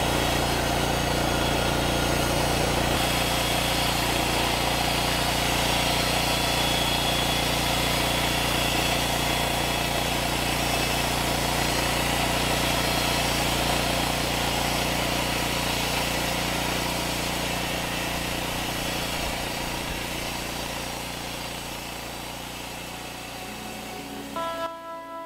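Norwood LumberMate LM29 portable bandsaw mill running steadily as its band blade cuts along a log, fading out gradually near the end.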